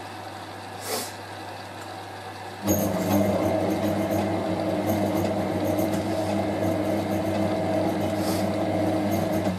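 Hotpoint 9530W front-loading washing machine's drum motor cutting in a few seconds in with a steady pitched hum, tumbling the wet towels for about seven seconds, then stopping near the end. A single short click about a second in.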